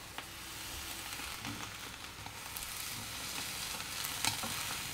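Banana-leaf-wrapped paturi parcels sizzling in a hot pan as they are turned with steel spoons, with a couple of light clicks of spoon against pan.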